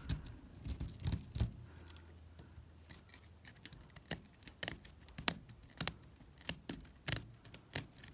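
Metal tweezer tips scraping and picking at soft, poorly cemented, water-soaked sandstone around an embedded fossil shark tooth: sharp, irregular scratches and clicks, bunched together about a second in, then coming roughly one every half second to second.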